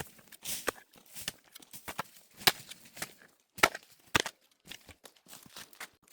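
A hand tool striking again and again: irregular chopping blows, one or two a second, with softer scrapes between them.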